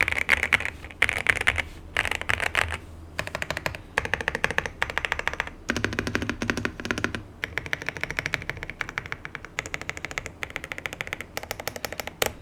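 Typing on an Epomaker Cypher81 mechanical keyboard straight out of the box: fast runs of keystrokes in bursts of a second or two, with a deeper-sounding run about six seconds in and a last single keystroke near the end.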